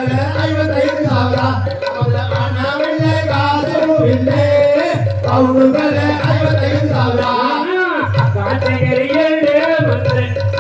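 Valli kummi dance song: a voice singing a Tamil folk melody over a steady drum beat.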